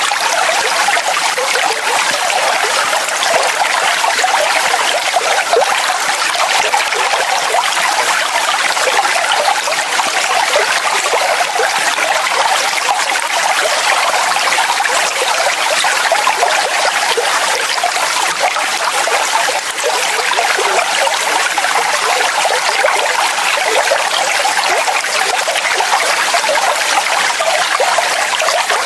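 Water falling and splashing in a steady, unbroken rush, heavy in the mid and high range with little low rumble.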